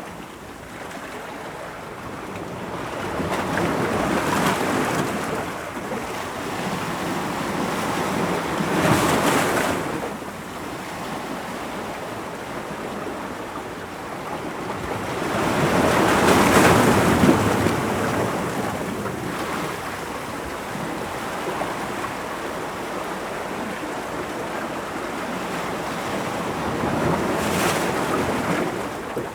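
Ocean waves breaking on rocks: a steady wash of surf with louder crashes swelling up every several seconds, the loudest about halfway through.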